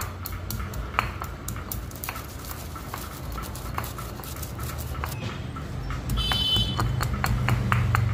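Stone pestle pounding whole spice seeds, coriander among them, in a stone mortar: a quick, irregular run of stone-on-stone knocks, several a second, crushing the seeds coarsely.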